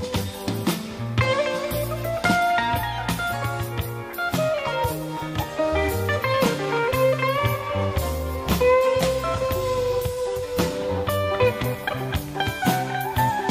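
Background blues music: a guitar playing sustained, bending lead notes over a bass line and a drum beat.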